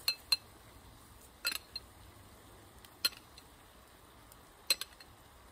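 A spoon clinking against a bowl and skillet as heaping spoonfuls of flour are scooped into the pan for a roux: a handful of short, sharp clinks spaced irregularly, a second or more apart.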